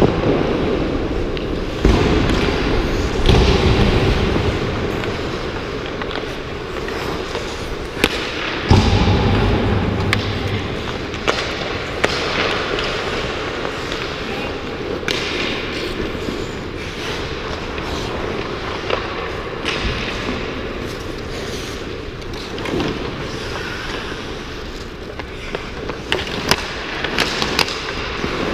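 Ice hockey play on indoor rink ice: skate blades scraping and carving the ice, with sharp clacks of sticks and puck now and then, a cluster of them near the end.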